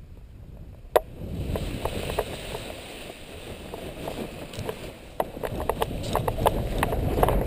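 Wind rushing over the microphone, growing louder as the paraglider pilot is pulled faster along the ground by the winch tow line, with scattered clicks and knocks, the sharpest about a second in.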